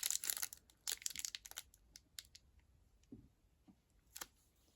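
Crinkling and rustling of snack packaging being handled, busiest in the first second and a half, then a few light clicks and taps.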